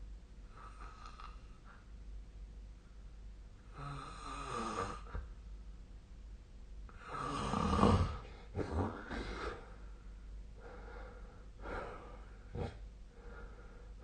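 A sleeping person snoring: several uneven snores, the loudest about halfway through, with shorter snorts after it.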